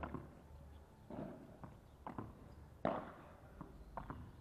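Padel ball knocks: the ball bouncing on the court and being struck by padel rackets, a series of sharp irregular knocks with the loudest about three seconds in.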